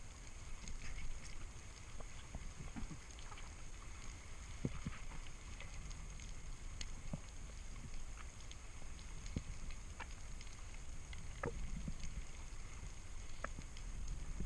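Underwater ambience on a spearfishing dive: a steady low rumble with scattered short clicks and crackles throughout.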